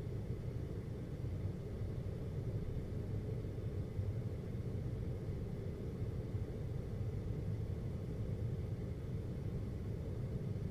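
Air conditioner running with a steady low hum and a faint thin whine above it.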